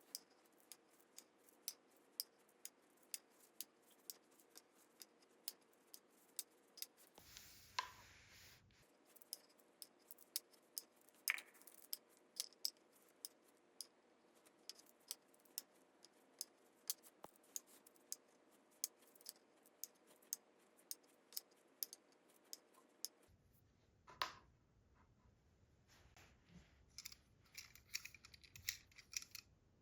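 Marbles running down a wooden HABA marble run: a string of light, irregular clicks and clacks, a few each second, with a quicker run of clicking near the end.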